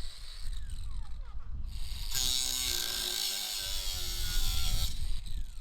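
A power tool cutting through an old nail in a log, running for about three seconds in the middle, with falling whines as it winds down before and after.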